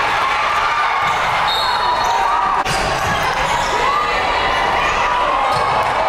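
Live women's college basketball game sound: a basketball bouncing and short squeaks from sneakers on the court over steady crowd noise in an arena.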